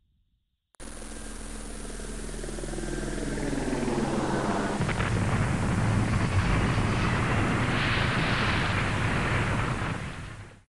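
Edited-in dramatic sound effect: a low rumble that starts abruptly about a second in and swells over several seconds into a loud, dense rushing noise, then cuts off suddenly.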